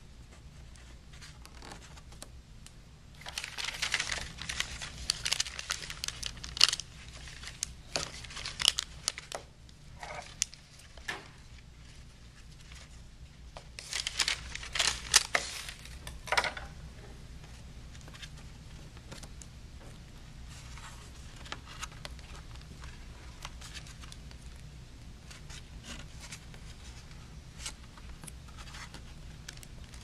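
Electrical tape being pulled, stretched and wrapped by hand around an antenna cable connector: crackling and crinkling in two spells of several seconds each, then only faint handling ticks, over a steady low hum.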